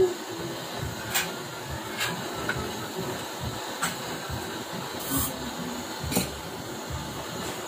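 Gas torch flame hissing steadily, with about six sharp clicks or taps scattered through it as the stainless-steel sheet is worked.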